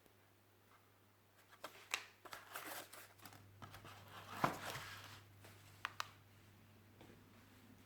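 Hands handling objects and packaging: scattered light rustles and clicks, with a sharper click about four and a half seconds in, over a faint low steady hum.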